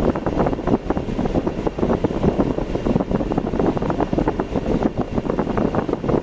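Steady, rough road and wind noise from a vehicle being driven, dense and rumbling without a break.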